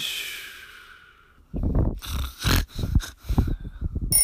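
Loud snoring: a run of rough, irregular snorts starting about a second and a half in, after a falling tone that fades away at the start.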